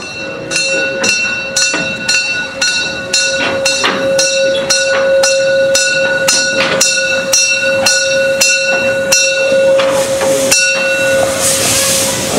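Steam locomotive standing in steam: a steady whine with regular knocking about twice a second, then, near the end, a loud rush of hissing steam.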